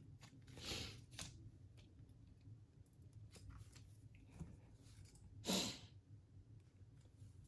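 Faint handling sounds of a zip tie being fastened: a few short rasps and light clicks, the loudest rasp about five and a half seconds in.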